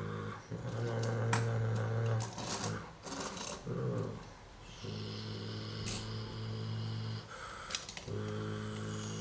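A person imitating vehicle engines with the voice, a series of low, steady rumbling drones of one to two seconds each with short breaks. A few sharp plastic clicks come from the toy bricks being handled.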